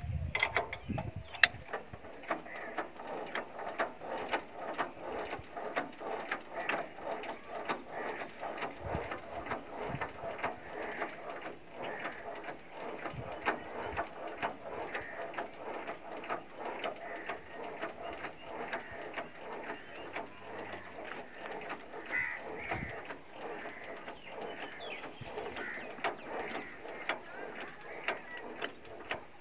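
Dense, irregular metal clicking and clinking as a steel bar turns a stopped Massey Ferguson tractor's PTO shaft back and forth by hand, with a few louder clanks in the first second and a half. Hand-turning the PTO shaft drives the hydraulic pump, so the three-point lift rises with the engine off.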